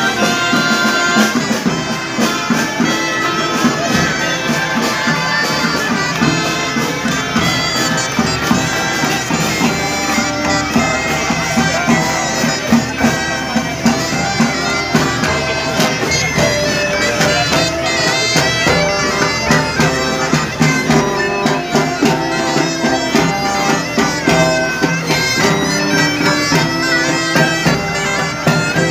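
Traditional reed wind instruments playing a loud folk melody, the tune running on without a break.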